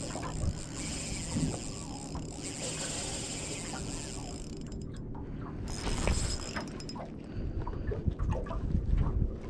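Spinning reel being worked while playing a hooked fish on a light rod: scattered mechanical clicks and ratcheting from the reel, thickest in the second half, over steady wind and water noise.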